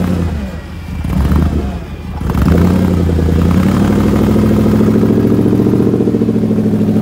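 Off-road 4x4 competition truck's engine revving in two short surges, then climbing to steady high revs from about two and a half seconds in, working under load while the truck is bogged in deep mud on a taut winch line.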